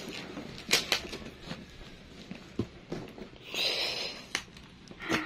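Hands patting, tapping and scratching on a taped cardboard box, with scattered light knocks and a short rasp a little past halfway.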